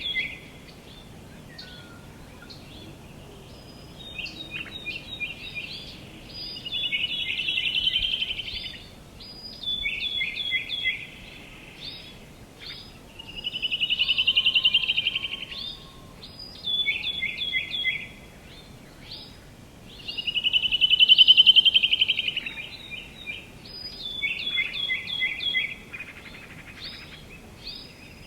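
Songbirds singing repeatedly: clusters of short, sharp down-slurred notes, and about every seven seconds a rapid trill of about two seconds that swells and then fades, over a faint steady background hiss.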